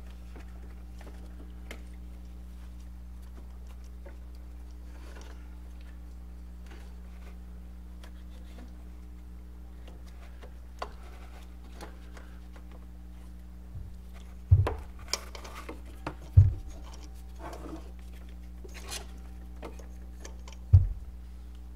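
Hand-handling noise from a rubber serpentine belt being worked around the stationary pulleys of an LS engine: faint rustles and light clicks, then a few dull thumps in the second half, the last near the end. A steady low hum runs underneath.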